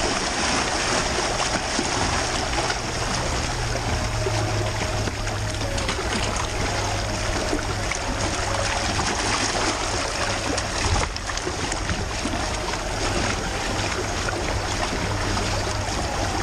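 Small lake waves lapping and washing against a rocky shore, over a steady low hum, with a brief knock about eleven seconds in.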